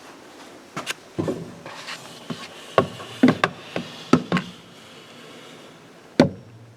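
Irregular hollow knocks and clicks of plastic parts being handled inside a refrigerator's freezer compartment, about ten in all, bunched together in the first half with a single loud knock near the end.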